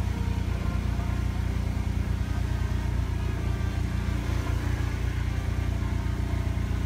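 Car driving along an unpaved forest road: a steady low rumble of tyre and road noise with wind buffeting.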